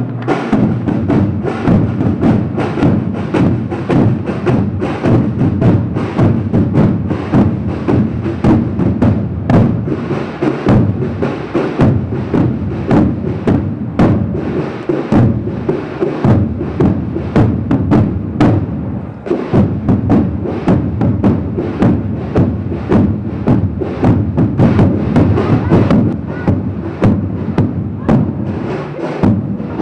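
A marching corps of side drums playing together, a dense, rapid cadence of strokes that dips briefly about two-thirds of the way through.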